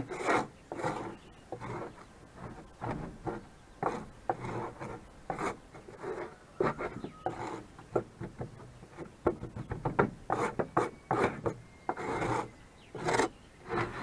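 Old litter being scraped and swept across the wooden floor of a chicken coop: repeated, irregular rasping strokes, some quick and some longer.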